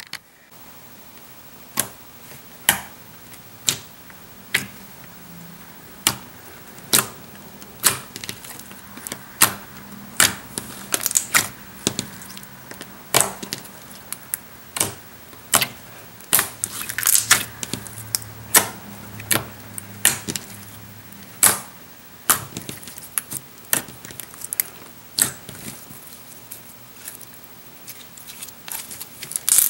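Slime being played with by hand, giving irregular sharp clicks, sparse at first and more crowded in the middle.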